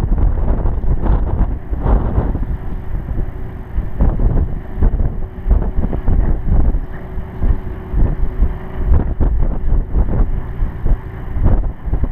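Wind buffeting an outdoor camera microphone in uneven gusts, a loud low rumble. Under it, a faint steady hum starts about two seconds in and stops around nine seconds.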